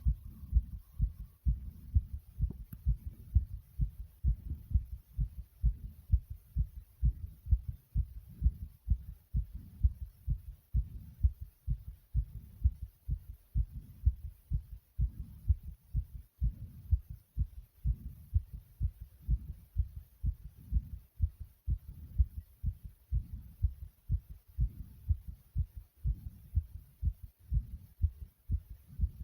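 Human heartbeat pounding: a steady rhythm of low thumps.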